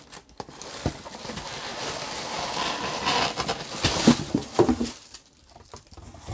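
A cardboard box being slid out of a tight-fitting cardboard shipping carton: a steady scraping rub of cardboard on cardboard for a few seconds, with a few knocks about four seconds in as it comes free and is handled.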